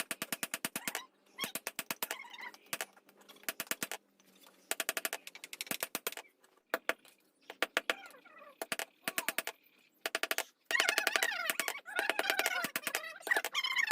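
Domestic fowl calling: repeated bursts of rapid rattling, gobble-like calls, mixed with wavering pitched calls that are loudest near the end.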